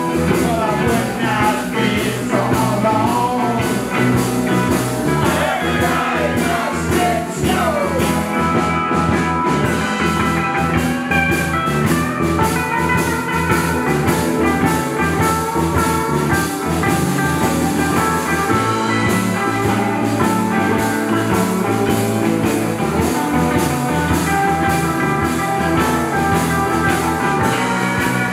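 Live rock band playing electric guitars and a drum kit, with a lead line bending in pitch through the first eight seconds or so.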